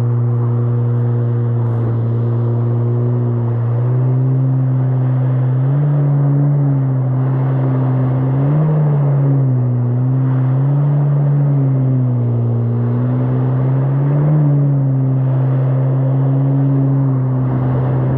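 Yamaha GP1800R SVHO jet ski's supercharged four-cylinder engine running at speed on the water. Its pitch rises and falls several times as the throttle is eased and opened, over the rush of water and spray.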